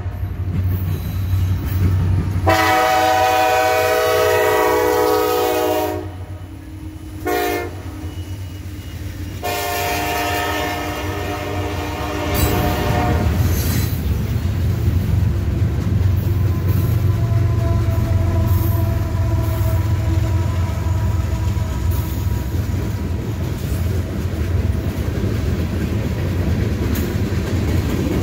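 A diesel freight locomotive's multi-note air horn sounds several long blasts. About halfway through, the train passes close by with a heavy, steady engine rumble and the noise of its wheels on the rails.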